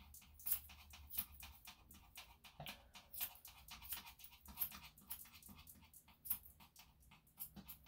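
Yorkshire terrier panting quickly, a steady run of short breaths several a second, with a few sharper snips of grooming scissors trimming fur at its paw.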